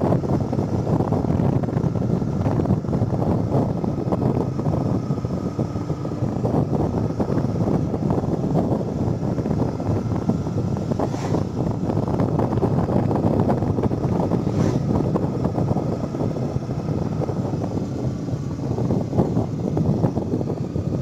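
Yamaha R15's single-cylinder four-stroke engine running on the move, mixed with wind rushing over the microphone. Two brief high chirps come through partway in.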